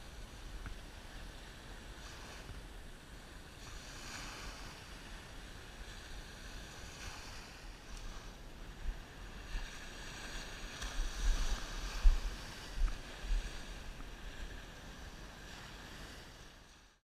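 Small surf waves washing in and out on a sandy beach, swelling every few seconds. Wind buffets the microphone, hardest in gusts a little past the middle, and the sound cuts off suddenly just before the end.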